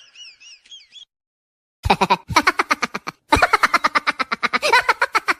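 Cartoonish laughing sound effect: a squeaky, warbling laugh tails off, and after a short gap comes a fast, pulsing run of laugh bursts, about five or six a second, with a brief break partway through.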